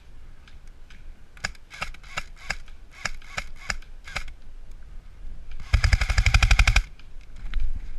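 Airsoft electric guns firing: a string of separate single shots, then about a second in the latter half of a loud full-auto burst of roughly twenty shots, with a few fainter shots after it.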